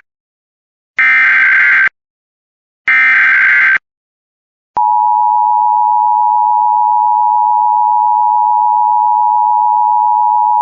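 Emergency Alert System tones: the last two bursts of the SAME digital header, each a harsh buzzing screech just under a second long, then a steady two-tone EAS attention signal that starts a little under five seconds in.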